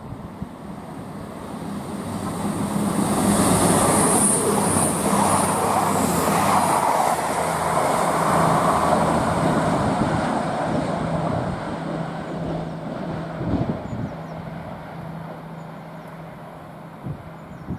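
East Midlands Railway Class 222 Meridian diesel multiple unit passing through the station without stopping. Its underfloor diesel engines drone steadily under the rush of wheels on rail, with a brief high whine as it goes by. The sound swells as it approaches and fades as it recedes.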